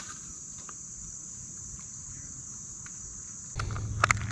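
Steady high-pitched insect chorus, with a few faint clicks and a low rumble coming in near the end.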